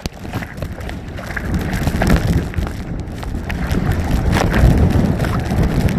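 Strong gusting wind buffeting the microphone: a loud, low rumble that swells and dips with the gusts.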